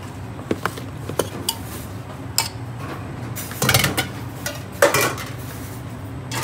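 Raw chicken pieces being tossed by gloved hand in a stainless steel bowl with flour and spices. The bowl clinks and knocks a few times, and there are two louder rustling, scraping bursts in the middle. A steady low hum runs underneath.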